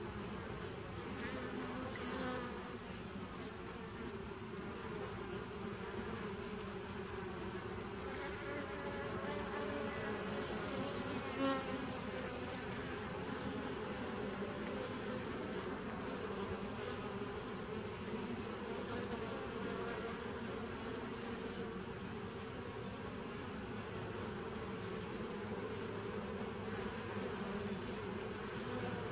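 Honey bees buzzing steadily at the entrance of a nucleus hive as they fly in and out, with a brief louder moment a little before halfway.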